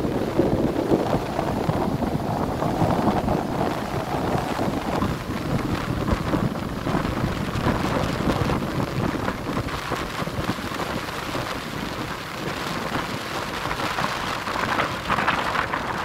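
Strong wind buffeting the microphone over rough surf, waves breaking and washing up a sandy shore in a continuous rushing noise. The hiss of the surf grows brighter near the end.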